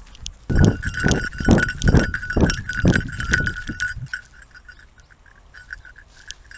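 A Doberman on the run, heard from a camera on its back: heavy rhythmic thuds about twice a second, which stop about four seconds in. Over them is a steady metallic ringing jingle.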